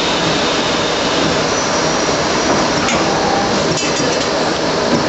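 Traub A25 automatic lathe running: a loud, steady machine noise, with a few short metallic clinks about three and four seconds in.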